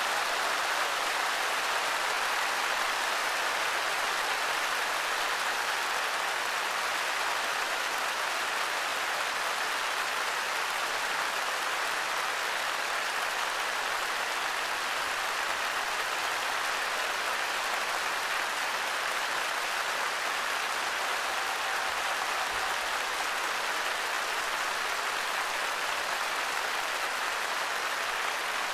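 Concert audience applauding in a long, steady ovation at the close of the music.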